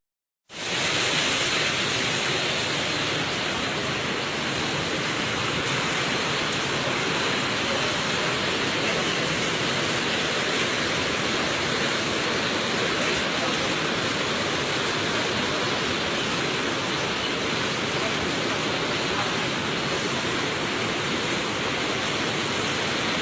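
Steady, unbroken rush of a river in flood, starting abruptly about half a second in.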